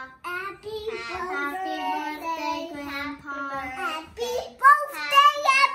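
Young children singing in high, drawn-out voices, with one child's voice getting much louder and higher near the end.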